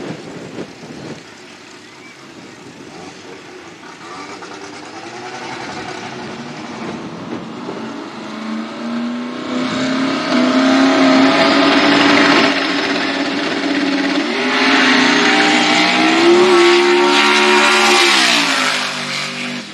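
Twin-turbo V8 of a 2500 hp Chevy Nova drag car revving, its note held steady at high revs for several seconds and stepping up higher about two thirds in as the car runs down the strip. The engine note falls sharply near the end.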